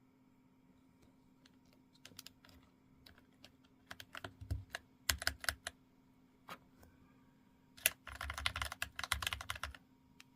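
Mechanical keyboard keys on a custom-built Keychron K8 Pro with OSA-profile PBT keycaps being typed on. Scattered keystrokes begin about two seconds in, then come short bursts, then a fast, dense run of typing near the end.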